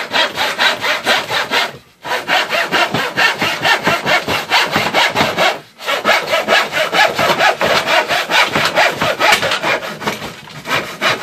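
Handsaw cutting through a cedar tabletop board with quick, even back-and-forth strokes, pausing briefly about two seconds in and again about six seconds in.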